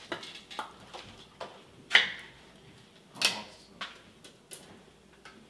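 A can of sweetened condensed milk being opened: a series of sharp metallic clicks and knocks, the loudest a snap about two seconds in.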